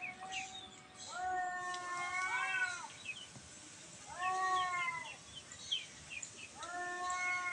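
A cat meowing in long, drawn-out calls, one every two to three seconds, each with a falling end.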